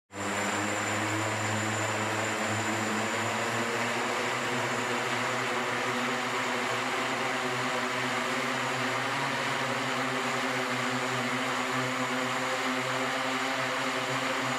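Propellers of an electric multirotor flying car (eVTOL) running steadily, a whirring hum with several fixed tones over a broad rushing noise.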